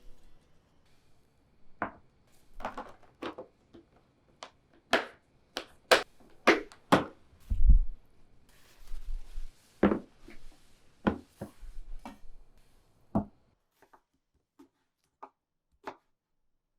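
Knife cutting watermelon on a cutting board: about a dozen irregular knocks and chops, with a short rustle near the middle. The last few seconds hold only faint light taps.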